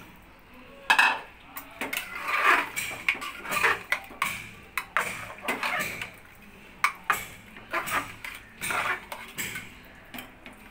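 Metal ladle scraping and knocking against the inside of an aluminium pressure cooker while stirring thick cooked rice and moong dal, in irregular strokes that start about a second in.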